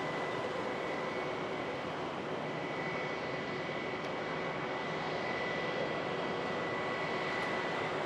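Aircraft turbine engine noise: a steady rushing sound with a thin, high, constant whine.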